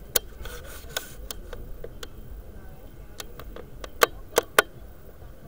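A string of sharp, irregular clicks over a low background, the three loudest close together near the end.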